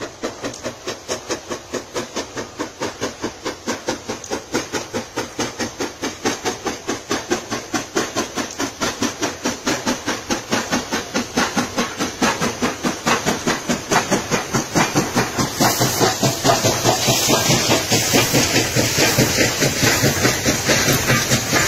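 Steam locomotive hauling a train and coming closer, its exhaust chuffing in an even beat of about three a second that grows steadily louder. From about two thirds of the way in, a loud hiss of steam joins the chuffs as the engine comes alongside.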